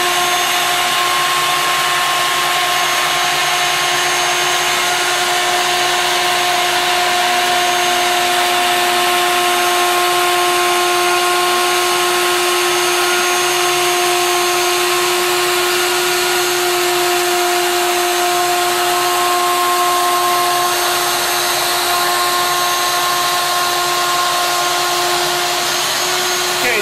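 Wood router on a home-built CNC router running steadily, its 1/8-inch single-flute end mill milling the outline of a letter in MDF. It gives a steady whine at one pitch over a loud cutting hiss.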